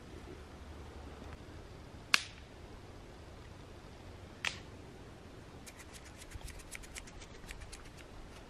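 Two sharp snaps about two seconds apart, then a quick, irregular run of faint clicks over low steady background noise.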